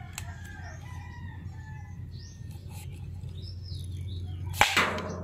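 Luthang, a bamboo popgun fitted with a plastic bottle to make its report bigger, firing once near the end with a sharp pop as compressed air drives the bullet out. Before it, only faint bird chirps over a low steady hum.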